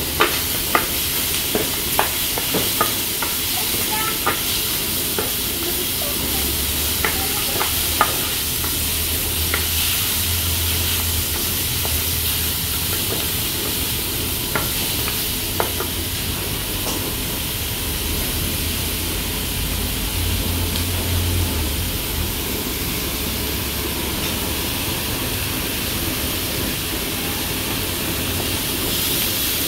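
Shrimp, squid and onion sizzling in a hot frying pan while a wooden spoon stirs and scrapes them, with sharp taps of the spoon against the pan, most of them in the first several seconds.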